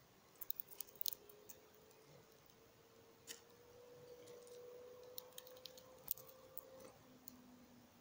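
Faint, scattered clicks and taps of a small bird pecking at seed on a wooden platform feeder: a cluster in the first second, one near three seconds, and another cluster between five and six seconds. A faint hum that slowly rises in pitch runs underneath and stops near seven seconds.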